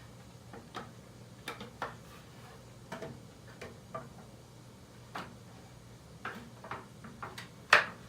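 Irregular light clicks and ticks of wooden parts and small metal connector hardware being handled as a sawhorse stretcher is fitted into place, with one sharper knock near the end.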